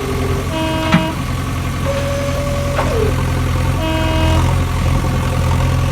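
Toy-vehicle engine and horn sound effects: a steady low engine drone with a short horn toot twice, about three seconds apart, each just after a held tone that slides down in pitch.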